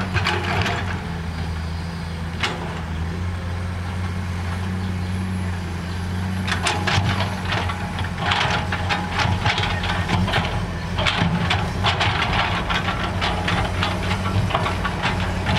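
Heavy diesel engine of road-construction machinery running steadily with a low drone. From about six seconds in, repeated bursts of clattering and knocking sound over it.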